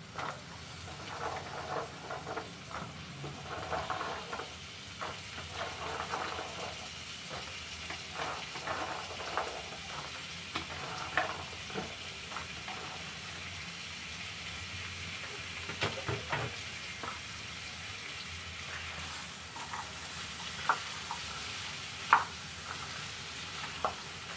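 Spice masala sizzling in oil in a frying pan as chickpeas, potato and green pepper fry in it, with a spatula scraping and knocking against the pan as it is stirred. A few sharper knocks come in the second half.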